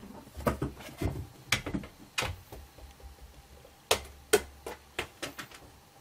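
Irregular knocks, taps and scratching from a cat clambering on a rope-wrapped scratching post with a small toy basketball hoop, its claws catching on the post and board. Two sharper knocks stand out a little after four seconds in.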